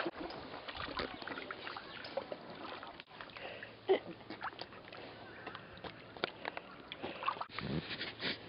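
A cockapoo paddling through lake water: quiet, irregular small splashes and sloshing.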